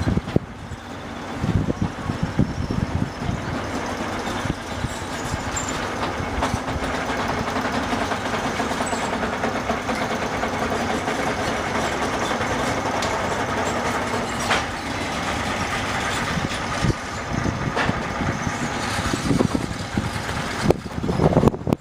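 AC electric train moving on the rails: a steady rumble with a constant hum, a few sharp clicks, and heavier knocking of the wheels near the start and the end.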